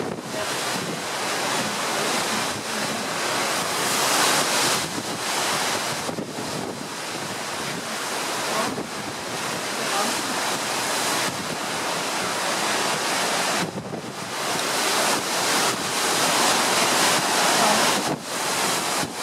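Wind buffeting the microphone over the rush of open-sea waves, swelling and easing in gusts every few seconds.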